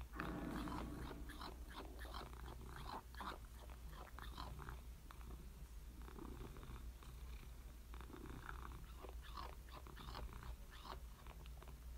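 Domestic cat purring steadily and softly, with faint short clicks and rustles over the purr.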